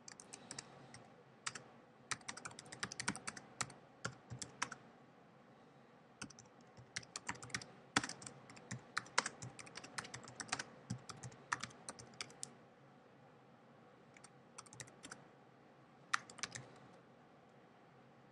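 Typing on a computer keyboard: quick runs of key clicks in several bursts, with short pauses between them, as a sentence is typed out.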